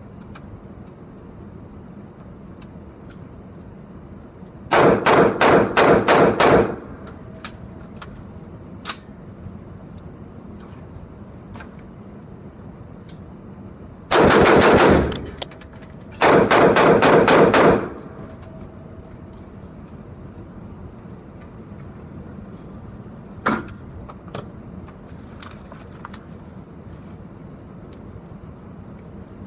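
Newly built lightweight AR-15 rifle fired in rapid semi-automatic strings in an indoor range, several shots a second: a string of about seven shots, then after a pause two more quick strings close together. A single fainter shot follows later.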